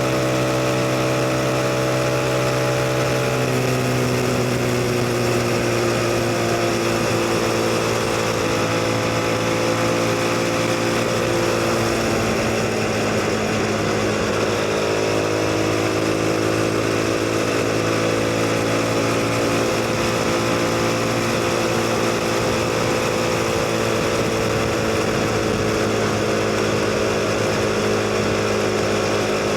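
CF Moto 250NK's single-cylinder engine running while the motorcycle is ridden, its pitch dropping a few seconds in and then rising and falling slowly with the throttle, over a steady rushing noise.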